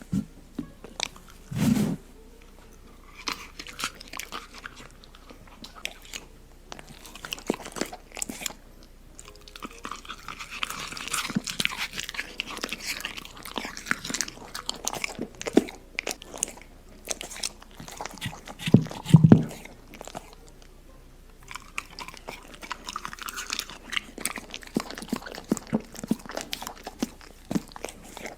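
A dog eating, with irregular crunching and chewing throughout. Two heavier low thumps come about two seconds in and, loudest, about nineteen seconds in.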